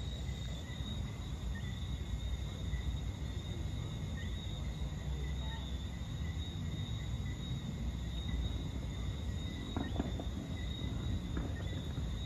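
Chorus of Johnstone's whistling frogs (Eleutherodactylus johnstonei): many frogs giving short, high whistling chirps that overlap into a continuous chorus, over a low rumble.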